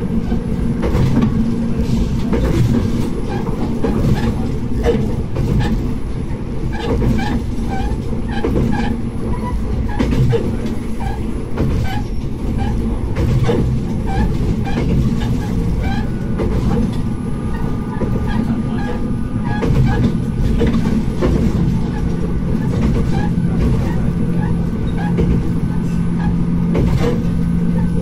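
Diesel railcar running along the line, heard from the cab: a steady engine and running noise with frequent irregular clicks and knocks from the wheels on the track. About two-thirds of the way through, a steady hum joins in.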